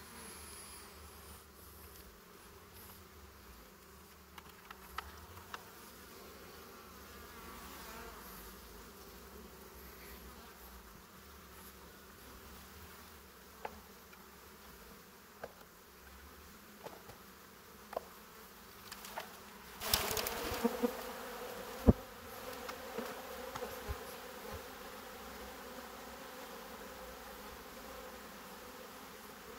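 Honeybee colony humming steadily from an open hive. Scattered clicks and knocks of wooden frames and hive parts being handled come through it, with a louder burst of handling noise about two-thirds through and a sharp knock just after.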